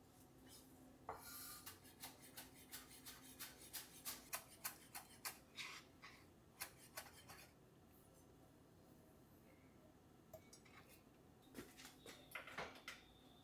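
A chef's knife chopping green chillies and coriander leaves on a wooden cutting board, a quick run of knocks at about three strokes a second that stops after some six seconds. Near the end, a few clicks and clinks.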